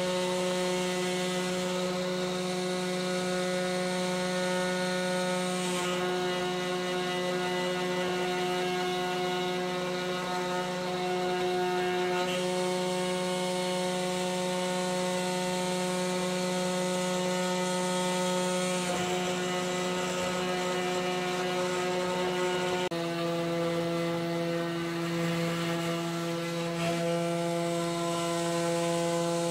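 MPCNC router spindle running with its small end mill cutting into an oak board, a steady whining hum made of several tones that shifts slightly in pitch a few times as the machine moves.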